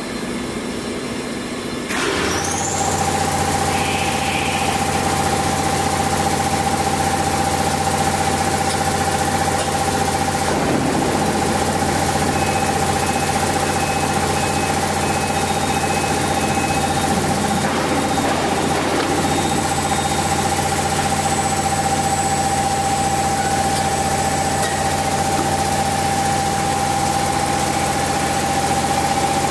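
C-frame rubber injection molding press running with a steady machine hum and a constant whine. It gets louder about two seconds in with a short rising whine, and there are brief noisier swells around eleven and eighteen seconds.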